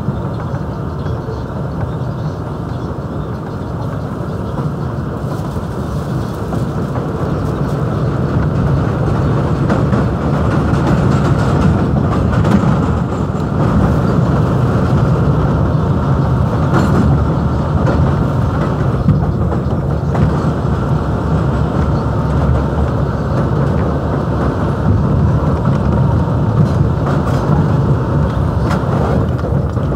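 New York City Subway R62A car running on elevated track, heard from inside the car: a steady rumble of wheels on rail with occasional sharp clicks. It grows louder about ten seconds in and stays loud.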